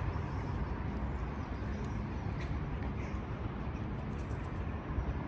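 Steady low outdoor rumble with a few faint bird chirps around four seconds in.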